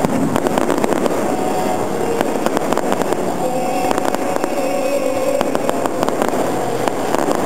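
Fireworks going off: a dense, continuous crackle of many small rapid pops from bursting crackling stars.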